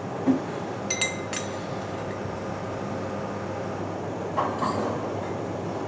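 A metal spoon clinks twice against a stainless-steel pan with a brief ring, then scrapes against it while lifting fried garlic slices out of the olive oil, over a steady low kitchen hum.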